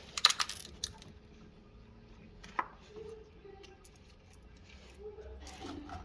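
A short metallic clatter with a brief high ring, like a small metal object dropped onto a hard surface, just after the start, then a single lighter click a couple of seconds later.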